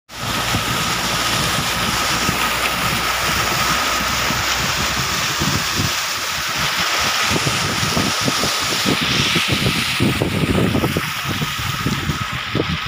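Steady rushing noise of a moving vehicle, with wind buffeting the microphone at an open side window. The buffeting gets heavier from about six seconds in.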